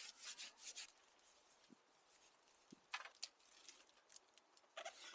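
Faint handling noises: scattered light clicks and short rustles, in a cluster in the first second, again around three seconds in and near the end, with near silence between.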